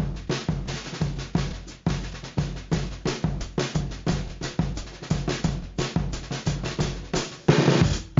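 Background music built on a drum beat, with fuller music coming in near the end.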